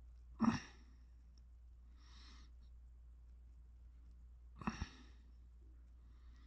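A man sighing: two short voiced exhales about four seconds apart, with a fainter breath between them.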